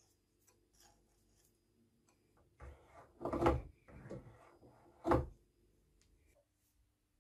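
Cast-iron top slide of a vintage Lorch lathe pushed by hand along its dovetail ways, metal sliding and scraping on metal. A longer, uneven slide comes about three seconds in, then a short sharp one about a second later.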